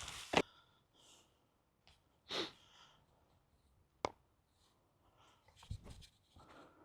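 Mostly quiet, with a short sniff a couple of seconds in and a single sharp click about four seconds in.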